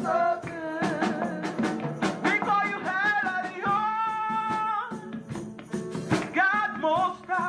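Gospel praise song performed live: a singer carries the melody, holding one long note about halfway through, over a band with steady, evenly repeated percussion hits.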